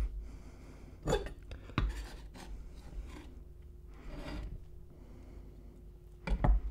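Kitchen knife blade scraping across a wooden cutting board and against a hookah bowl, gathering sticky, syrup-soaked cigar tobacco in a few short strokes. The loudest scrapes come near the end.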